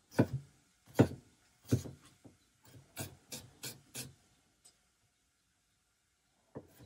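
Chef's knife cutting through onion and striking a wooden cutting board. Three sharp chops in the first two seconds, then four lighter, quicker cuts, a pause, and more cuts starting near the end.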